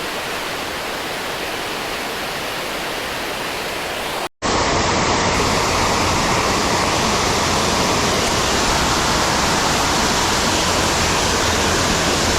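Steady rush of water pouring over a creek spillway. After a brief break about four seconds in, it comes back louder and deeper.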